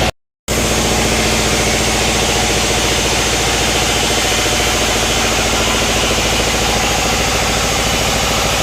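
Sawmill machinery running steadily with a dense, even engine-like drone and a rapid regular pulsing. The sound drops out completely for a moment just after the start.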